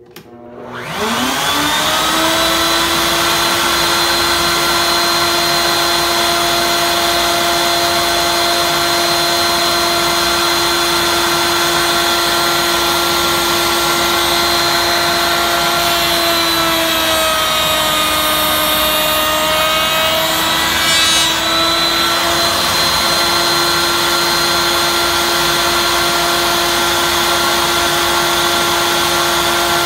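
Router in a router table switched on, spinning up over about two seconds to a steady high whine. About 16 seconds in, its pitch sags and a hissing cutting noise joins for several seconds as the bit cuts the cope on the end of a door rail, then it recovers to its steady free-running pitch.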